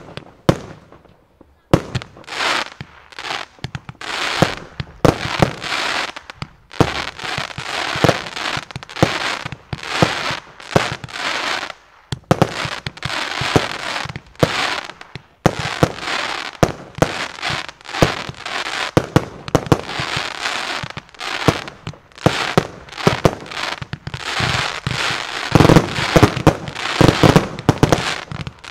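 Fireworks display: after a short lull, a rapid, continuous string of firework bangs with crackling between them, with the heaviest bangs near the end.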